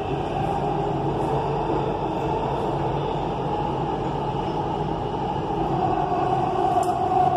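Dubai Metro train running, heard from inside the carriage: a steady rumble and rush, with a mid-pitched whine growing louder about six seconds in.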